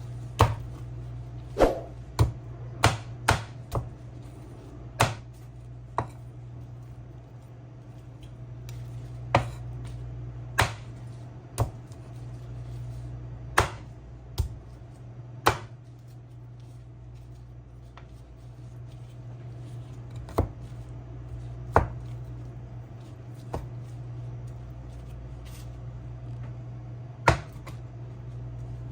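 A knife striking a cutting board in single, irregularly spaced chops, about twenty in all, some close together, over a steady low hum.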